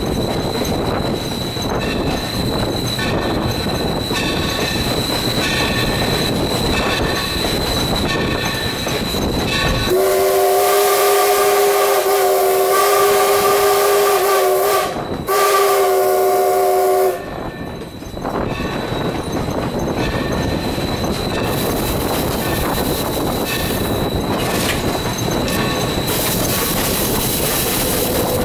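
Steam locomotive whistle sounding for a road crossing: a long chime-toned blast about ten seconds in, a brief break, then a shorter blast. Behind it runs the steady rolling noise and rail clatter of the moving train.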